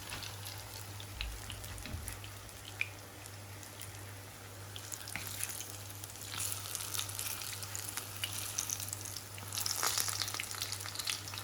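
Aubergine slices sizzling and crackling in hot oil in a frying pan, a steady hiss with many small pops that swells a few times.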